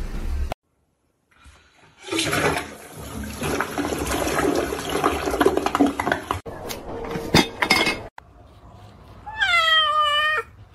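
Toilet flushing, with water rushing into the bowl for about four seconds, followed by a few sharp knocks. Near the end a kitten gives one meow of about a second, falling slightly in pitch.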